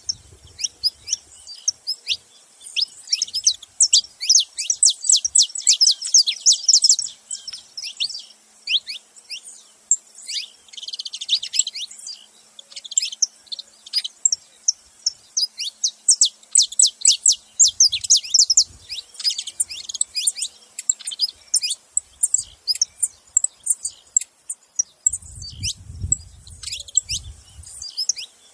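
Saffron finch singing and calling: quick runs of sharp, high chirps coming in dense bursts with short gaps between them. A low rumble sounds near the end.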